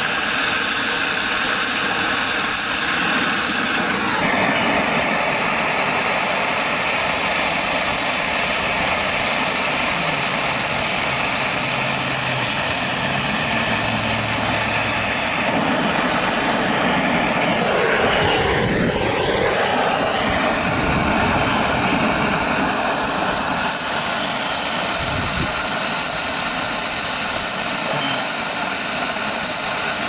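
Brazing torch flame burning with a steady rushing hiss while a liquid line filter drier is brazed into the refrigerant line.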